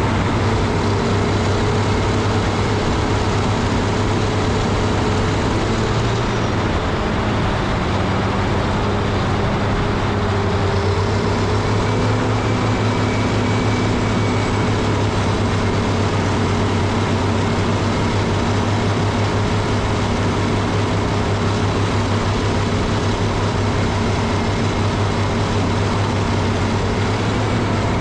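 Heavy diesel engine of a Caterpillar 637C scraper running steadily, its pitch dipping slightly and coming back up between about six and twelve seconds in.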